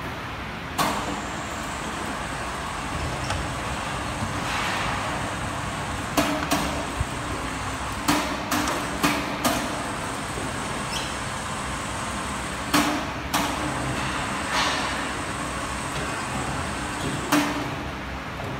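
About a dozen sharp knocks and clanks at irregular intervals as LED display cabinets are pushed into place and fastened together, over a steady background hum.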